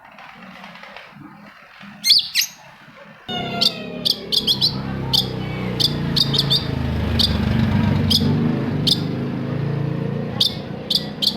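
Long-tailed shrike (cendet) calling: short, sharp, high notes, some sliding down in pitch, repeated at an irregular pace. About three seconds in, a louder low, steady background sound comes in beneath the calls.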